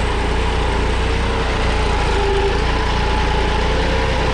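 Massey Ferguson 9500 tractor's diesel engine running steadily under load while it pulls a three-bottom mouldboard plough deep through the soil. A steady whine that wavers slightly in pitch runs over the engine's low drone.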